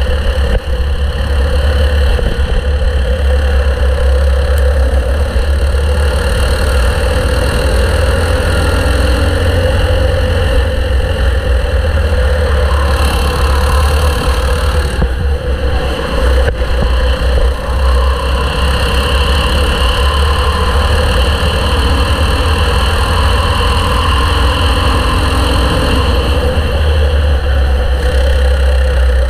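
A racing kart's engine running continuously at speed, heard onboard with a heavy low rumble of wind and vibration on the microphone.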